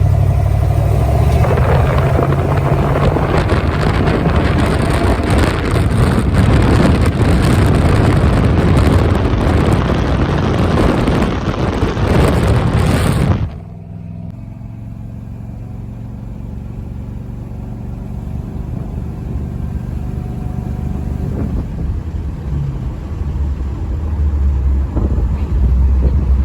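Car's LS-swapped 5.3 V8 running loud and hard for about thirteen seconds, then the sound drops off suddenly to a quieter steady engine hum that grows louder again near the end.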